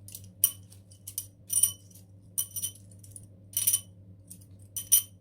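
Transparent reusable drinking straws clinking against each other as they are handled and counted: a string of short, sharp, ringing clinks at irregular intervals, which she says sound like glass.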